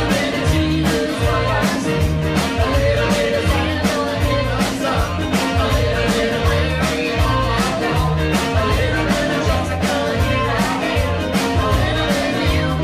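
Upbeat dance music with a steady drum beat, bass line and singing.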